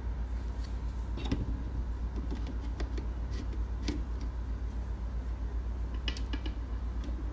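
Steady low hum with a scattering of light clicks and ticks, a small cluster of them about six seconds in.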